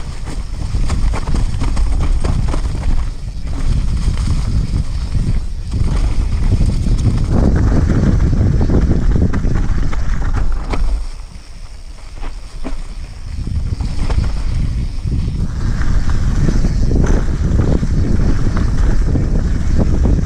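Wind buffeting the microphone of a camera on a downhill mountain bike, mixed with the bike rattling and its tyres running over a rough dirt trail. It eases briefly a little past halfway, then picks up again.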